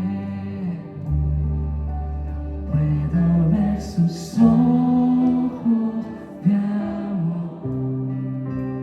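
Live worship band playing a slow instrumental passage: held keyboard and guitar chords over a moving electric bass line, with drums.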